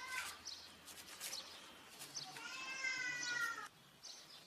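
An animal's drawn-out high call, held for about a second and a half past the middle, over faint soft taps and plastic crinkling as a round fluted cookie cutter is pressed into rolled dough on a plastic sheet.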